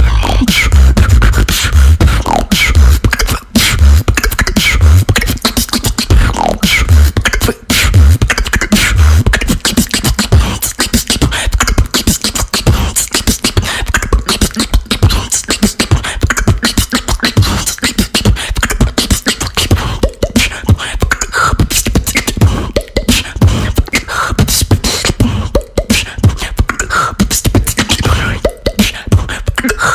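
Female beatboxer performing a fast solo routine: dense mouth-made kick drums, snares and clicks in quick rhythm, with heavy deep bass pulses in roughly the first third and short pitched vocal sounds later.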